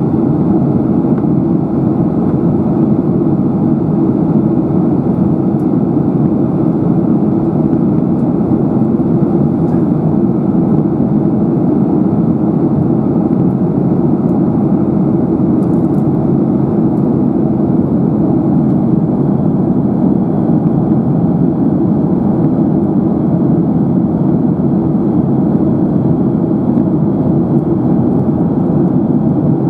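Steady cabin noise inside a Boeing 737-800 in flight: an even, low rumble of the jet engines and air rushing past the fuselage, unchanging throughout.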